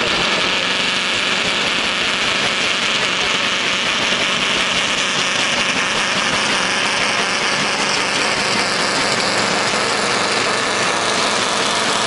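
Scania V8 pulling truck's engine running steadily under full load as it drags the weighted sled down the track.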